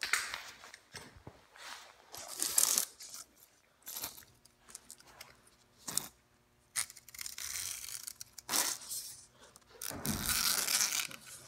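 Utility knife blade dragged along the edge of a window screen frame, slicing off the excess screen mesh in a series of short rasping strokes with pauses between them.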